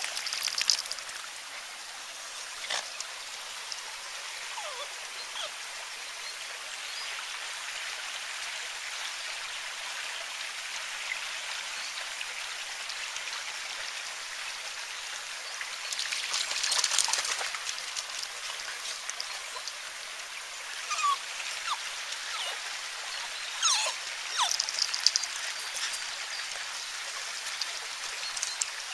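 Steady rushing of a small woodland stream, with a few short louder noises about halfway through and again near the end.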